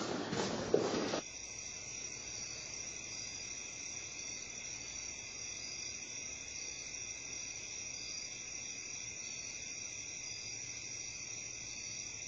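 Night insects chirping in a steady, high-pitched chorus that starts about a second in and runs unchanged. A brief clatter of shuffling and knocks, with one sharp knock, fills the first second before it.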